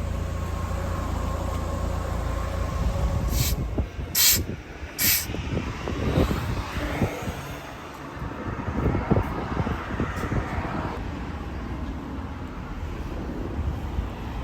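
Low vehicle rumble, then three short sharp hisses about a second apart, followed by quieter irregular knocks and rumbling.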